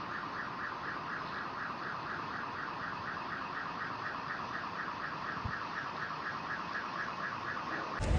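An alarm pulsing rapidly, about five beeps a second, over a steady hiss. It cuts off suddenly just before the end, giving way to a louder low rumble.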